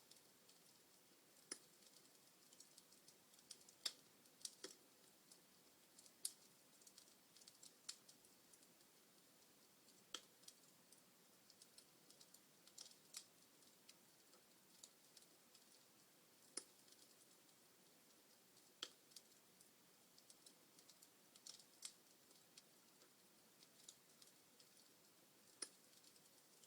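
Wood fire in a fireplace crackling: irregular sharp pops and snaps, a few every second or two, over a faint hiss.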